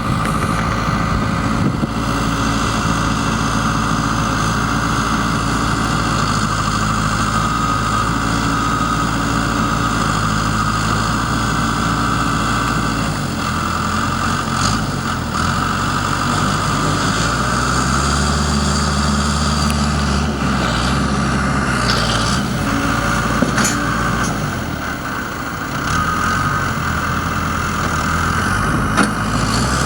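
Backhoe's diesel engine running steadily with a constant high whine over it. Around the middle its note rises for several seconds, then drops back, and a few sharp knocks stand out near the end.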